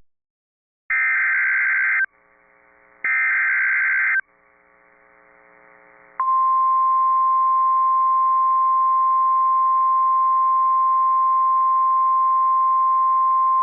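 NOAA Weather Radio emergency alert: two bursts of harsh digital SAME data tones, each about a second long with a short gap between them. About six seconds in comes the steady 1050 Hz warning alarm tone, held to the end. This tone signals that a warning broadcast follows, here a severe thunderstorm warning.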